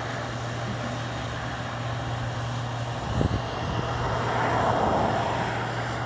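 Traffic on a busy main road: a steady low engine drone, with a vehicle swelling past and fading about four to five seconds in, and a short thump a little after three seconds.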